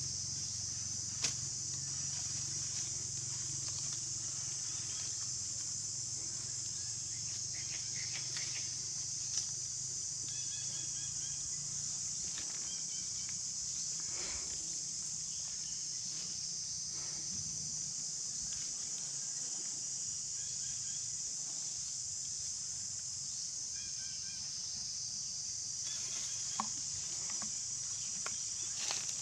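Steady high-pitched buzzing of insects, with a few short chirps in the middle and a handful of single clicks.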